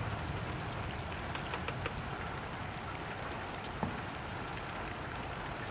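Steady rain falling, an even hiss with a few sharp drop taps in the first two seconds and one more just before the middle.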